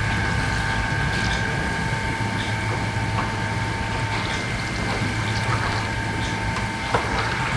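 Steady machine hum with several constant tones, over the low bubbling and hiss of tulumba dough frying in a large pan of oil as a ladle stirs; one sharp knock near the end.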